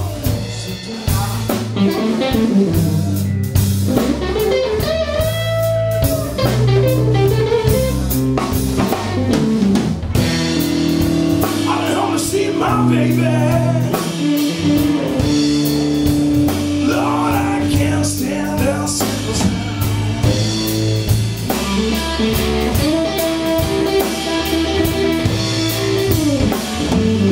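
A live blues trio of electric guitar, electric bass and drum kit plays a slow blues. Over the steady bass and drums, the guitar's notes bend up and down in pitch.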